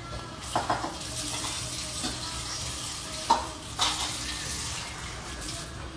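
A spoon stirring jackfruit curry and freshly added coconut milk in a stainless steel skillet, over a steady sizzle from the pan. The spoon knocks against the pan twice under a second in and twice more a little past the middle, the first of that later pair the loudest.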